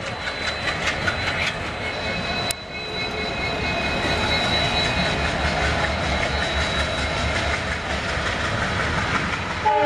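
ALCO WDG3A diesel-hauled passenger train running through a railway yard, heard from on board: a steady engine drone with wheel noise on the rails. A multi-tone locomotive horn starts sounding near the end.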